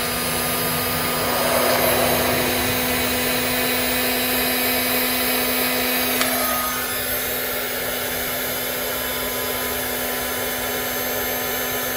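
Electric heat gun running steadily, a steady fan hum under a hiss of blowing air, used to shrink heat-shrink tubing over a soldered wire splice. A small click about six seconds in, after which the hiss eases a little.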